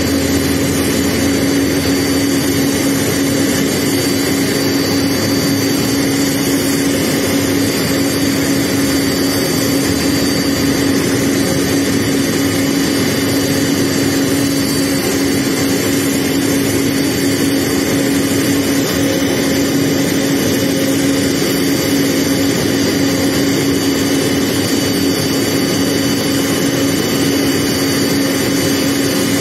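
Airbus A310 airliner running at idle on the ground: a loud, unchanging drone with a constant tone.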